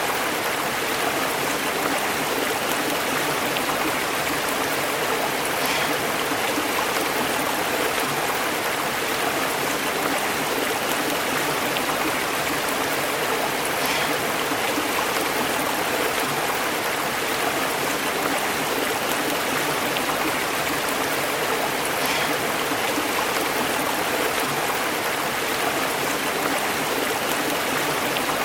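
A stream flowing steadily, its water burbling over rocks.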